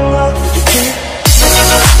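Electronic music laid over the footage: held synth tones thin out and dip, then deep bass drum hits that drop in pitch come in a little past halfway.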